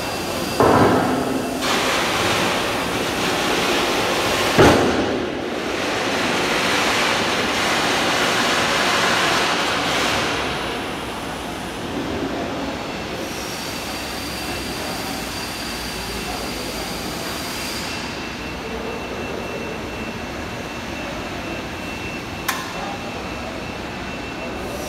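Two-axis head-and-tail-stock welding positioner turning a long steel frame on its electric gear motors: a steady mechanical rumble, with a loud knock about half a second in, another about five seconds in, and a short click near the end.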